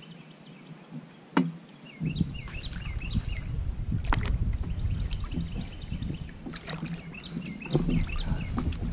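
Songbirds chirping over and over, with a low rumble that starts about two seconds in and a couple of sharp clicks.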